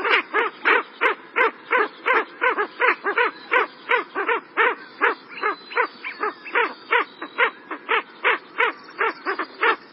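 Ring-necked duck calling: a steady series of short, evenly spaced calls, about three a second.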